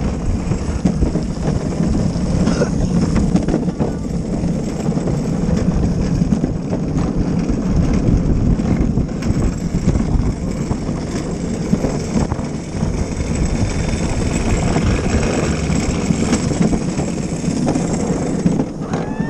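Luge cart wheels rolling at speed down a wet asphalt track: a steady, loud rolling noise that rises and dips slightly through the bends.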